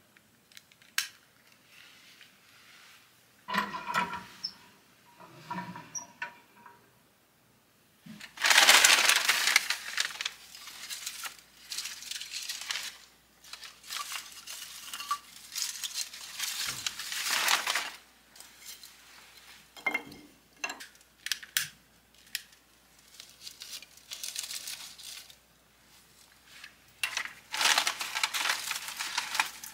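A few metal clinks and scrapes as a wood stove's door is opened, then long bouts of newspaper crumpling and rustling as it is packed into the firebox.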